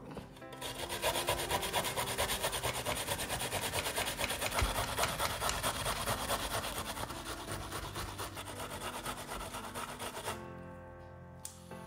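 Half an onion rubbed back and forth over the blades of a stainless-steel box grater: quick, regular rasping strokes that stop about ten seconds in. Soft background music plays underneath.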